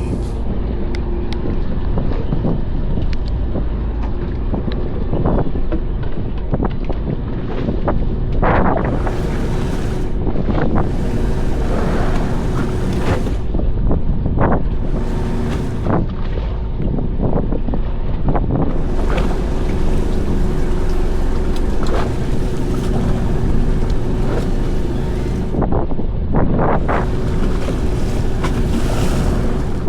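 Fishing boat's engine running steadily with a low hum, wind gusting across the microphone, and occasional short knocks.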